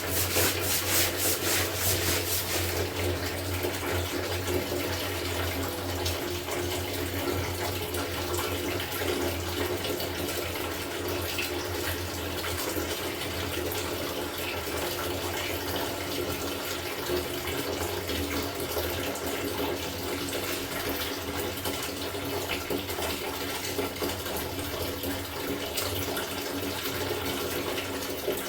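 Water running steadily from a tap, with a quick rhythmic swishing over it for the first two or three seconds.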